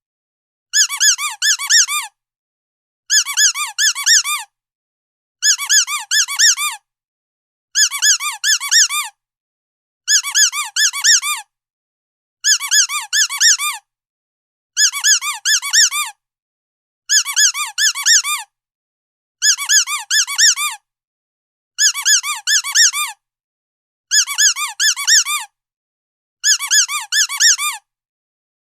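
Rubber squeaky dog toy being squeezed in quick bursts of four or five high-pitched squeaks, each burst about a second long, repeating evenly every two seconds or so with silence between.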